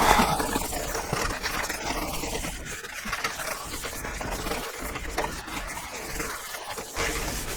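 Cloth rubbing over a scroll saw's metal table, wiping off excess machine wax.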